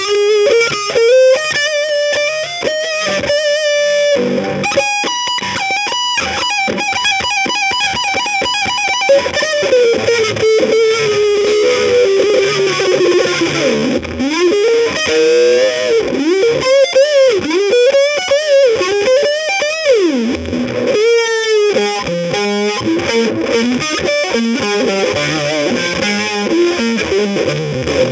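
Background music led by a distorted electric guitar playing a slow melody, with pitch bends and wavering held notes over a backing.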